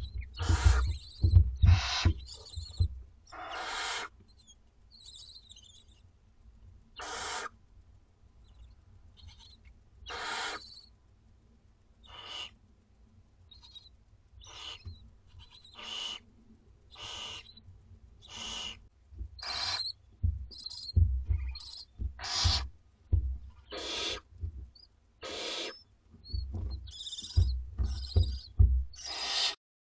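Barn owlets giving their begging calls: short, raspy hisses repeated every second or two, with low bumps near the start and again in the second half.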